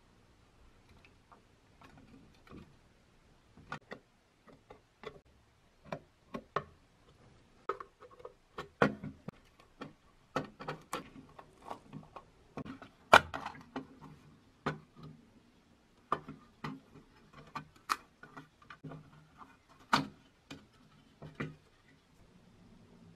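Irregular clicks, taps and clinks of a rusty sheet-metal clockwork toy boat being handled and taken apart by hand, its deck lifted off the hull. The knocks come unevenly, the loudest about 13 seconds in and again near the end.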